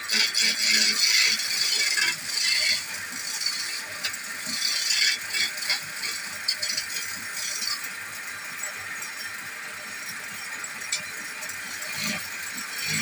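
Turning tool cutting into a spinning chair leg on a wood lathe, with a rattling scrape. It comes in bursts that are strongest in the first three seconds and again around four to five seconds in.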